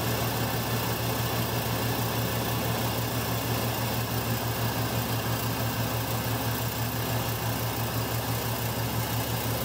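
Freshly rebuilt 327 Chevy small-block V8 running steadily at idle with an even, unchanging pulse, being run in after installation.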